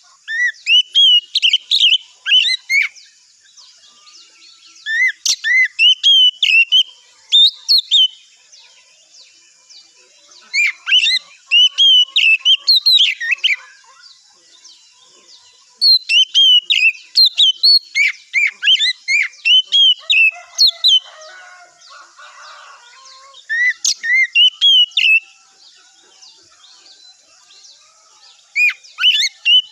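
Oriental magpie-robin (kacer) singing: loud bouts of varied whistled notes that sweep up and down, each bout a few seconds long with pauses of a second or two between, over a faint steady high hiss.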